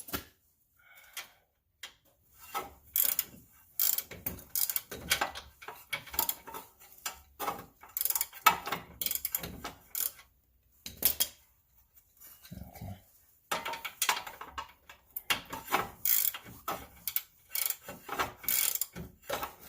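Irregular scraping and rubbing strokes, a hand tool worked back and forth against parts of the wheel-hub assembly, in quick runs broken by short pauses. A brief tone is heard about twelve seconds in.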